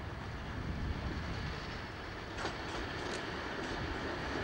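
Class 31 diesel locomotive approaching with a loaded ballast train: a steady low engine rumble, with a few faint clicks about two and a half to three seconds in.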